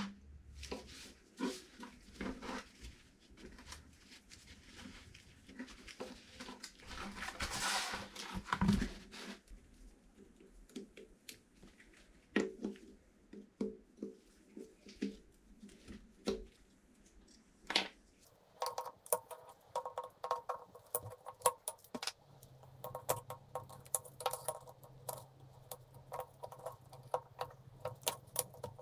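Metal parts of an old hydraulic bottle jack being handled: scattered taps, clicks and knocks, with a brief scraping rush about eight seconds in. From about two-thirds of the way through comes a run of rapid light metallic clinks with a ringing tone, like small steel parts jangling.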